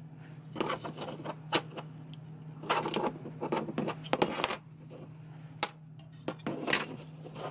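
Clicks and rattles of a pink 3D-printed plastic turntable base with small ball bearings as it is handled, turned and flexed in the hands. They come in four short clusters over a steady low hum.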